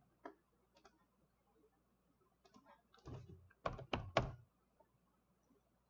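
Computer keyboard keystrokes: a few faint scattered taps, then a short run of sharper key presses about three to four seconds in, as a stock ticker is typed into a search box.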